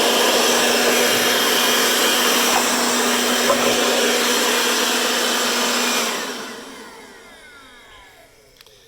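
KIMO 20-volt cordless handheld leaf blower running at full power: a steady rush of air over a motor hum. About six seconds in it is switched off, and the fan's whine falls in pitch as it spins down over a couple of seconds.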